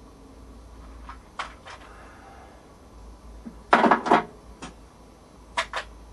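Hard objects being handled and set down: two light knocks about a second and a half in, a loud clatter of several knocks around four seconds in, and two more knocks near the end.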